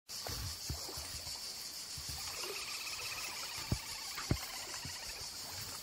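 A steady high insect chorus, with faint bird twittering through the middle and scattered low knocks. Two of the knocks, a little past halfway, are sharper than the rest.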